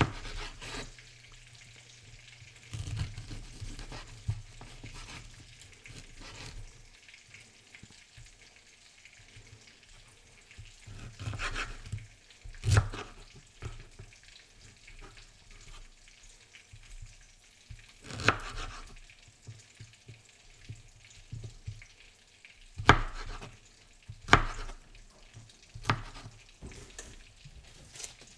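Sausage sizzling in a frying pan, a faint steady crackle, broken by scattered sharp knocks and clatters of kitchen utensils.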